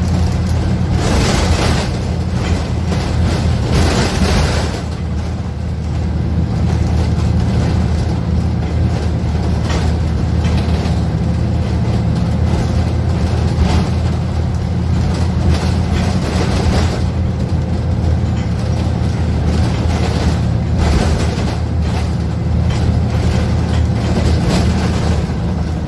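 Cabin noise inside a Zhong Tong LCK6180GC articulated bus under way: the Doosan GL11K CNG engine's steady low drone with road and body noise. Two brief hissing rushes come about one and four seconds in.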